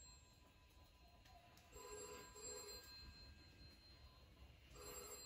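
Faint telephone ringing in a double-ring pattern: two short rings, repeating about every three seconds.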